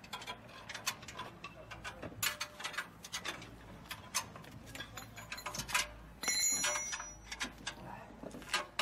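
Irregular metallic clicks and taps of hand tools working on a walking tractor while a reaper attachment is bolted on. A brief high-pitched squeal comes about six seconds in.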